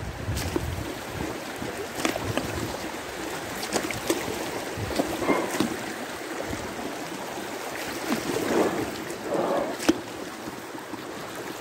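River water rushing and gurgling over shallow riffles around an inflatable kayak, with scattered splashes and light knocks against the boat.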